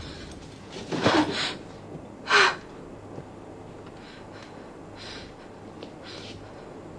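A woman crying: sharp gasping breaths, the loudest a short voiced sob about two seconds in, followed by fainter shaky breaths every second or so.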